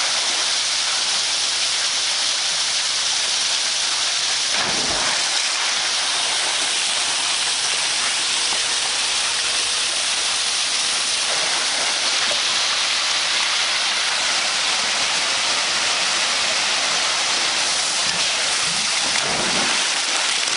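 Water gushing off the end of a rock waterslide and splashing into a pool: a steady hiss of spray, with a dull low thump about five seconds in.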